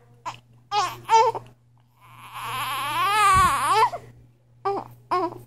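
A baby's high-pitched cries: a few short cries, then one long wavering cry of about two seconds, then two more short cries near the end.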